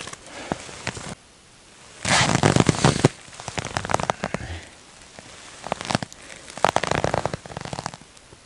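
Crackling, rustling bursts: a loud one of about a second near the start, then weaker ones in the middle and later, with quiet gaps between.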